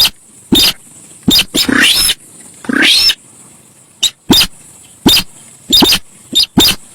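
Sintar sawah bird giving loud, harsh calls in quick short bursts, about a dozen, several sweeping upward in pitch; a lure-call recording, described as super noisy.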